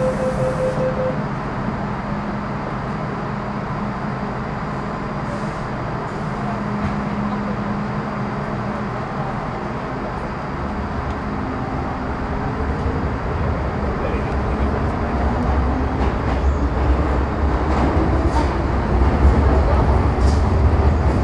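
MTR Metro Cammell M-Train (CT-Stock C239) electric multiple unit with GEC GTO chopper traction: a steady hum with a held tone, then from about halfway the rumble builds and the chopper's tones climb steadily in pitch as the train accelerates.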